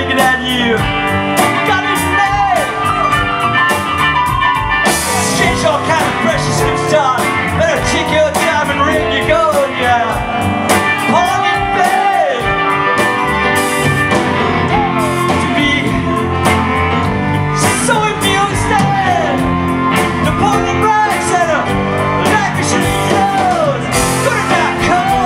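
Live rock band playing: electric guitar, upright bass and fiddle over a steady drum beat, with a lead vocal.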